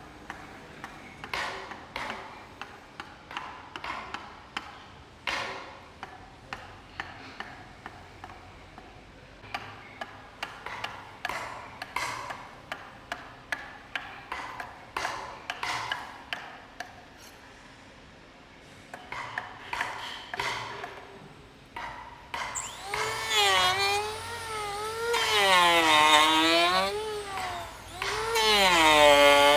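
Hand tool strikes in a woodshop: repeated sharp knocks with a short ring, one to two a second. About three-quarters of the way through, a power tool's motor starts, louder, its pitch dipping and rising as it is worked.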